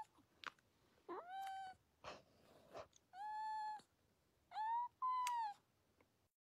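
A colorpoint cat giving four short, quiet, high meows, each sliding up and then holding its pitch, the last two close together.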